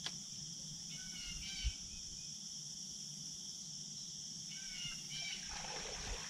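Steady high-pitched insect chorus, with short bird chirps in pairs about a second in and again near the end. A soft low thump comes about a second and a half in, and a brief rush of noise just before the end.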